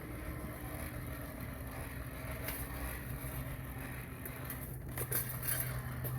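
Hand-cranked forge blower whirring steadily as it is cranked, forcing air under the forge fire to bring it up to heat. Its low hum grows stronger about five seconds in, with a few light clicks.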